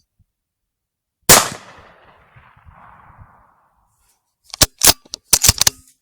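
A single loud gunshot about a second in, its echo rolling away for about two seconds, followed near the end by a quick run of sharp mechanical clicks close by.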